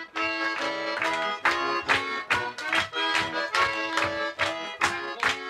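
Button accordion playing a tune, notes and chords changing in a steady rhythm.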